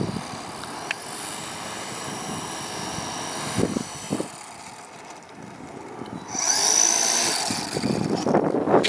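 Electric motor and propeller of a Hobbyzone Super Cub RC plane whining in flight. The whine grows louder and brighter for a couple of seconds from about six seconds in.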